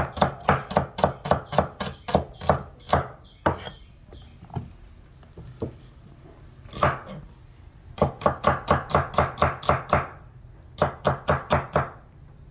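Steel cleaver chopping red onions on a thick round wooden chopping block. The strokes come in quick even runs of about five a second, with a pause of a few seconds in the middle.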